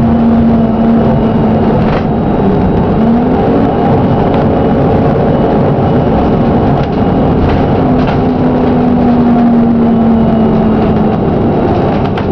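Plaxton President double-decker bus engine running under way with a steady whine that shifts in pitch a few times, and a few sharp knocks scattered through: the bus has a bad engine knock.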